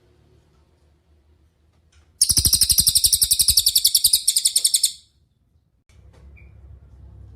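A cililin songbird singing one fast, rapidly repeated high-pitched trill, about ten notes a second, lasting roughly three seconds and starting about two seconds in, over a faint low background rumble.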